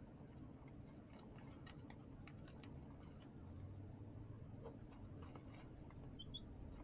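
Baby chicks in a brooder pecking and scratching, heard as faint irregular ticks and taps, with a couple of short soft peeps near the end.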